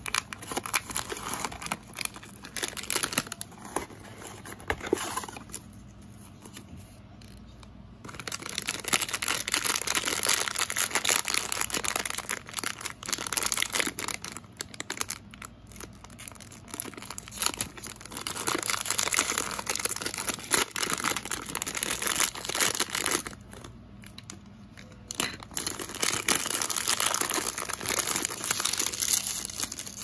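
A small cardboard toy box pulled open, then a foil-lined plastic blind bag crinkled and torn open by hand: long stretches of dense crinkling and tearing, with two short quieter pauses.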